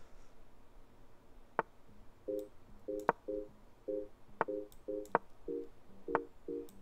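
Sharp clicks of chess pieces being moved in an online chess game, with a run of short low beeps repeating about twice a second from a little over two seconds in.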